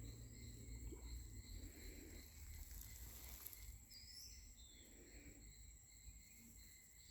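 Near silence: faint background with a low rumble and a thin steady high tone, and a couple of brief faint chirps about four seconds in.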